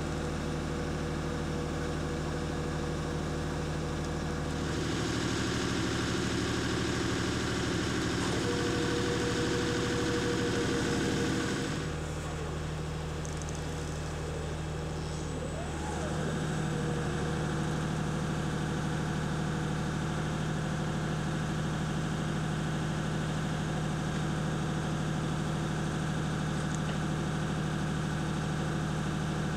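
Diesel engine of a Morooka tracked carrier running steadily, a low hum that shifts in level a few times, with a brief whine that rises and falls about halfway through.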